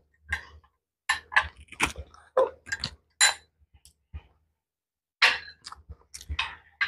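Close-up eating sounds: sharp wet mouth smacks and chewing clicks from two people eating soft food, coming in quick clusters with short pauses between.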